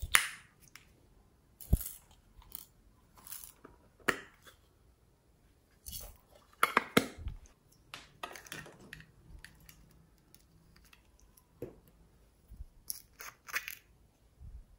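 Small plastic cosmetic containers being handled: a string of separate clicks, taps and short crunchy scrapes with quiet gaps between them. The sharpest click comes right at the start.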